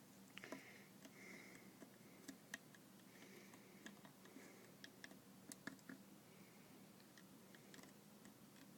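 Faint, scattered small clicks and taps of a lighter-fluid bottle's plastic spout being pried open with a small tool, over a low steady hum.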